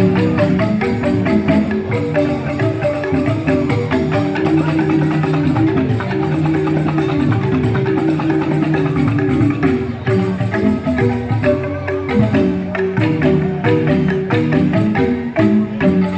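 Joged bumbung gamelan: bamboo tube xylophones (grantang) playing a continuous stream of quick, ringing melodic notes.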